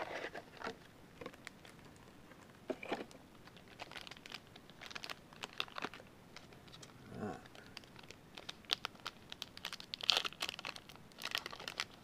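Foil trading-card packs crinkling and rustling as they are handled and worked open, in irregular crackly bursts that are busiest near the end.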